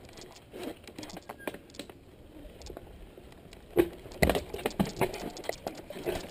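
Mountain bike clattering over a rocky trail: light rattling clicks, then a run of sharper knocks starting about four seconds in as the wheels strike rocks.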